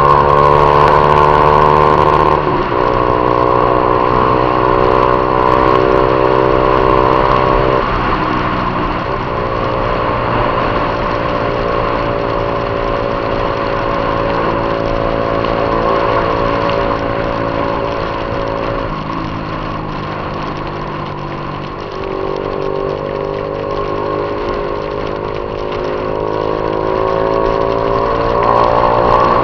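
Honda CG Titan 150's single-cylinder engine running under way with a steady hum of wind and road noise. The engine note changes in steps about two and a half seconds in, near eight seconds, around nineteen and twenty-two seconds, and rises again near the end.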